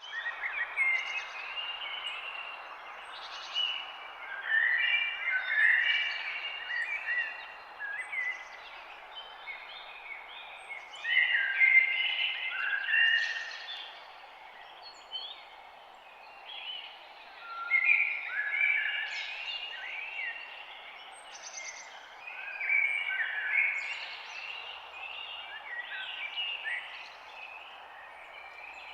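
Several songbirds chirping and singing over a steady background hiss, in bursts of short phrases that come and go throughout.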